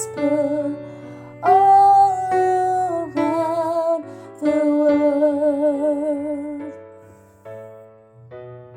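Piano accompaniment playing the closing chords of a hymn, with a long sung note held with vibrato through the middle. After that the music thins to a few quieter piano notes that fade away.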